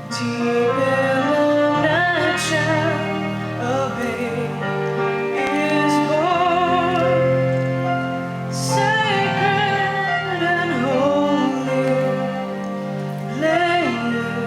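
Girl singing a slow, tender Christmas solo with vibrato over sustained accompaniment chords.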